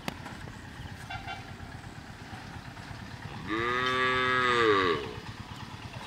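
A cow mooing once, a single call of about a second and a half that rises and then falls in pitch, starting about three and a half seconds in.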